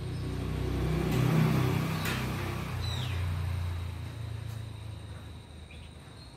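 A motor vehicle passing by: its engine hum swells to a peak about a second and a half in, then fades away over the next few seconds.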